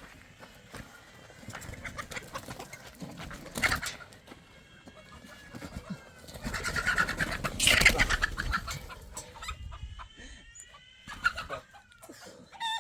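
Chickens clucking, a few short calls high in pitch. A louder rough rushing noise comes around four seconds in and again in the middle.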